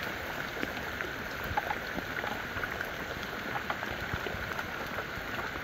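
Steady rain pattering on the mangrove, with many small scattered drop ticks over an even hiss.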